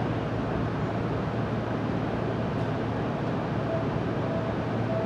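Seibu Railway electric commuter train running on the track, heard from inside the front of the train: a steady rumble of wheels on rails, with a faint high tone coming and going in the second half.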